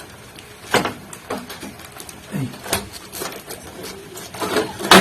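Irregular sharp clicks and knocks, about one every half second to a second, with a louder knock at the very end.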